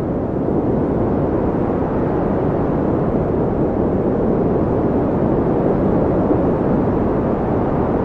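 Blizzard wind blowing steadily: a deep, even rushing noise with no single gusts standing out.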